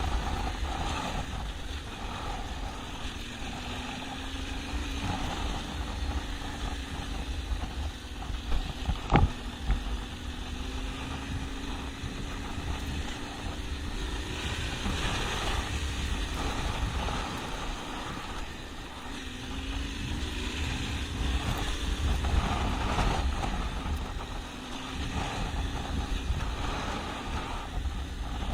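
Yamaha Ténéré 700's parallel-twin engine running as the bike is ridden off-road, its pitch rising and falling several times with the throttle, over a steady low rumble of wind. A single sharp knock about nine seconds in.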